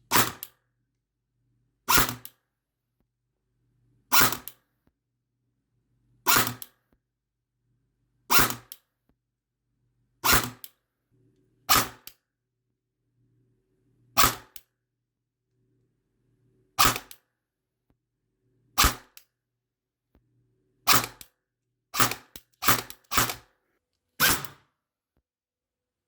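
A series of about fifteen sharp mechanical clicks, each with a short fading tail, spaced roughly two seconds apart and coming faster near the end, with a faint low hum between them.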